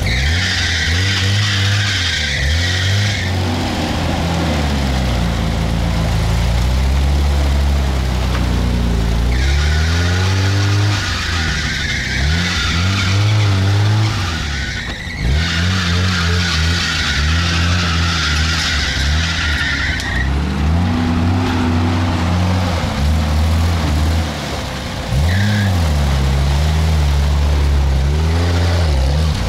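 Car engine revving up and down again and again under load, with three long bursts of hiss as the wheels spin on rough off-road ground.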